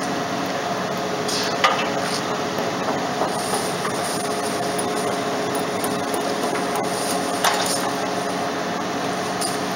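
A ferry's engines running with a steady hum as the ship comes into port, with a sharp clank about a second and a half in and another near the end.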